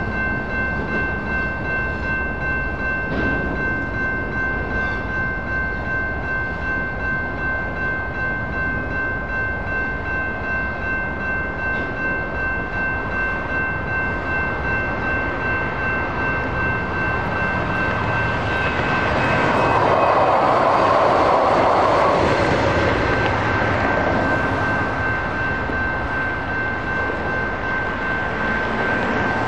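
Railroad crossing bell ringing steadily with a pulsing ring, over the running noise of a Union Pacific local freight train rolling through and away. About two-thirds of the way in, a louder rushing sound swells and fades.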